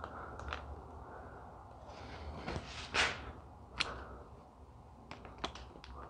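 Faint handling and movement noise while someone walks with a hand-held camera: a few scattered soft swishes and clicks over quiet room tone, the loudest a brief swish about three seconds in and a sharp click just before four seconds.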